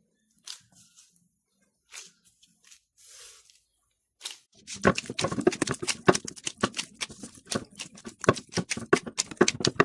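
Soft yeast dough being kneaded by hand: a few faint taps, then from about halfway through a quick, uneven run of wet squelching slaps and clicks, several a second.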